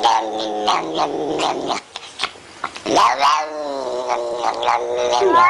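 Cat yowling in long, drawn-out wails, breaking off briefly about two seconds in, then rising and falling again.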